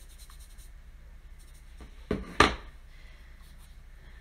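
Two sharp knocks about two seconds in, a third of a second apart, as objects are handled and set down on a hard surface, over faint room tone.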